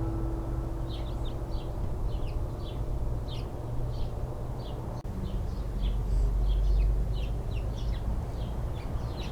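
Small birds chirping in quick, repeated notes over a low rumble of wind that swells about two-thirds of the way through.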